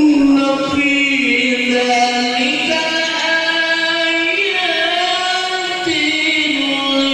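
Qari's voice reciting the Quran in the ornate melodic mujawwad style: long held notes that glide slowly between pitches in one drawn-out melismatic phrase.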